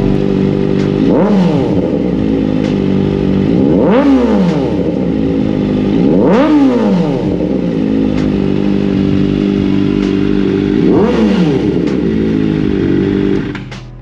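Kawasaki ZX-4RR's 399 cc inline-four idling through a Zeus titanium-and-carbon aftermarket muffler, blipped four times: each rev climbs sharply and drops straight back to idle. The engine sound cuts off just before the end.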